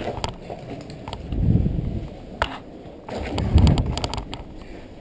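Someone moving over rubble and broken concrete: scuffing steps and small knocks, with two heavier low thumps about a second and a half and three and a half seconds in, and a sharp click between them.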